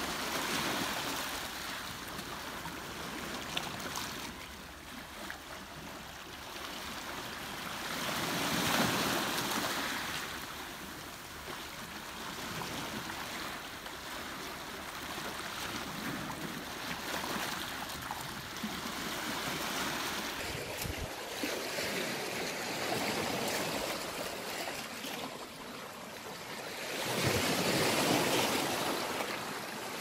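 Sea surf breaking and washing among the rocks and stones of a shoreline, swelling loudest about nine seconds in and again near the end.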